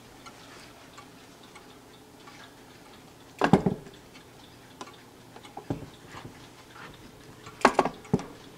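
Seth Thomas Brookfield banjo wall clock's pendulum movement ticking softly, broken by two loud clusters of wooden knocks and clatter from the clock case, the first about three and a half seconds in as the lower case door is shut, the second near the end.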